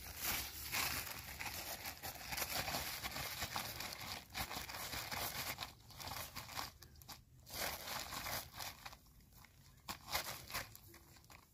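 Plastic bag crinkling and rustling as a hand works through dry bait powder inside it. The rustling is dense for the first half, then comes in shorter bouts, with one sharp crackle near the end.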